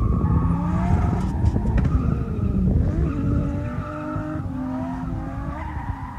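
Drift car accelerating hard and sliding, its engine revving up and down over squealing tyres. The sound fades toward the end as the car moves away.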